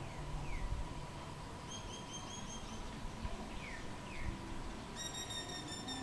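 Common myna calling: a few short falling whistles, a quick run of about six repeated high chirps about two seconds in, and a long held note with a rich, reedy tone near the end. A low rumble lies under the first second.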